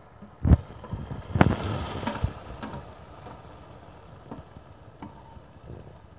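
Metal spatula knocking and scraping tomato paste off a steel plate into a wok of hot oil. Two sharp metallic knocks come about half a second and a second and a half in, followed by a short spell of sizzling and then lighter taps and scrapes.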